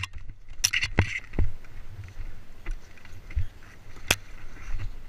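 Footsteps on a rocky dirt trail, with brush and gear rustling and scraping as a player moves. A few sharp clicks, the loudest about four seconds in.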